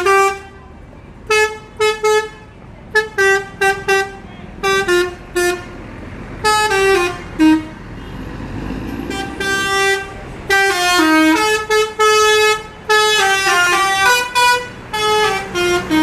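Telolet musical bus horn playing quick melodic phrases, short notes stepping up and down in pitch, with a brief pause about eight seconds in before the tunes start again.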